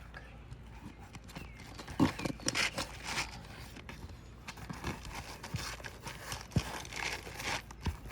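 Irregular knocks, clicks and scrapes of an asphalt shingle being handled and slid into place on a roof, the loudest knock about two seconds in.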